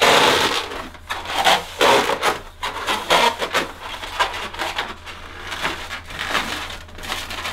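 Two inflated 260 latex modelling balloons squeaking and rubbing against each other as they are twisted together into a spiral, in a run of irregular creaks and squeals.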